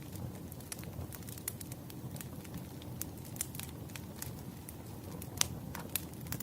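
Burning firewood crackling: a steady low rush of the fire with frequent sharp pops, the loudest one about five seconds in.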